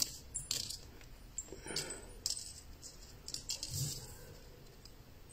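Faint, scattered metallic clicks and scrapes of thin craft wire being twisted and handled by hand.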